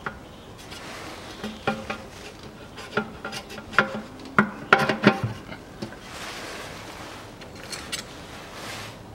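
Metal clinks and ringing taps of a socket on an extension and the pan bolts against the steel transmission oil pan as the bolts are started by hand. The knocks come in a cluster through the middle, then give way to a softer stretch of rubbing and scraping.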